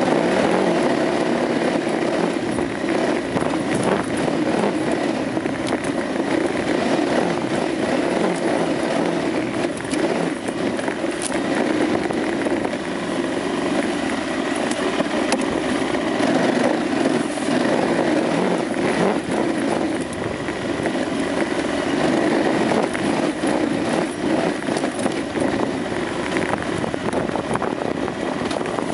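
KTM 950 Adventure motorcycle's V-twin engine running steadily as it rides a dirt trail, over a continuous rush of wind and trail noise.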